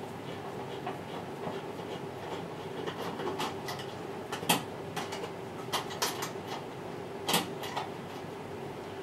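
Scattered clicks and light knocks of a hand screwdriver and small screws being worked out of a washing machine's bottom front panel, with two sharper clicks about four and a half and seven and a half seconds in.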